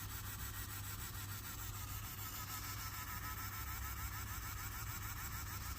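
Faint steady whir of a 3D pen's small feed motor pushing out filament, with a faint repeating chirp in it over a low hum.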